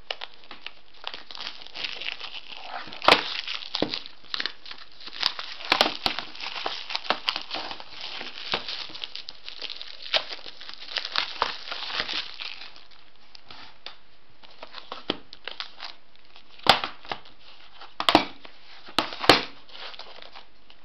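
Clear plastic shrink wrap being torn off a DVD box set and crumpled by hand, a dense crinkling and crackling with many small clicks. Over the last several seconds the crinkling thins out to a few sharp clicks and knocks as the plastic cases are handled.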